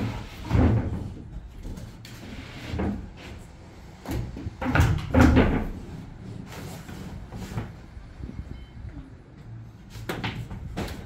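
A series of dull thumps and knocks at irregular intervals, the loudest about half a second in and around five seconds in.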